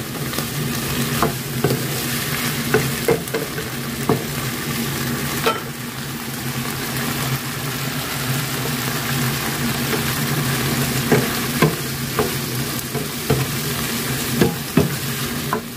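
Squid, bell peppers and spring onions sizzling as they stir-fry in a nonstick pan, with a wooden spatula scraping and knocking against the pan now and then. A low steady hum runs underneath.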